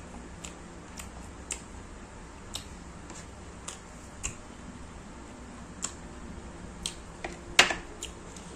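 Close-miked eating sounds: chewing and lip-smacking as sharp wet clicks every half second to a second, with one louder smack near the end.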